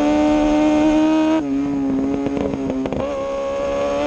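2003 Yamaha R6 600 cc inline-four running hard at high revs through a shortened Akrapovic exhaust. About a second and a half in, the note dips and the exhaust pops and crackles for about a second and a half, then the engine pulls steadily again with its pitch slowly rising.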